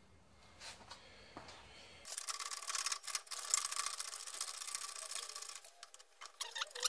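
Metal tools and a bearing separator being handled on a hydraulic shop press: a dense run of small metallic clicks and scraping starting about two seconds in, stopping shortly before the end, after a near-silent start with a couple of faint clicks.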